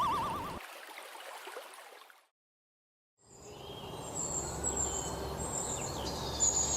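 A warbling tone fades away, then after about a second of silence an outdoor ambience begins: short high bird chirps over a steady background hiss.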